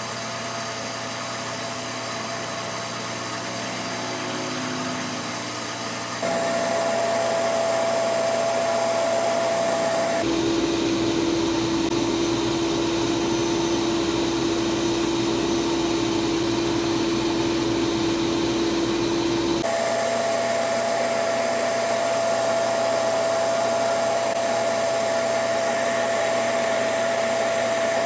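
Beaumont Metal Works 2x72 belt grinder with a 240-grit ceramic belt on the small-wheel attachment, running with a steady whine, grinding titanium knife-handle parts. About six seconds in it gets louder. At about ten seconds its pitch drops abruptly to about half, with a low rumble under it, and at about twenty seconds it jumps back up.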